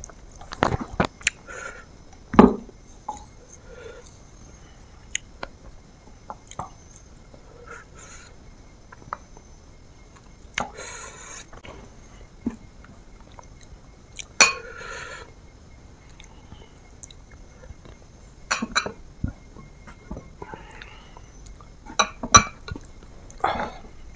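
A person eating up close: chewing and mouth sounds, with scattered sharp clicks and clinks of a utensil against a dish.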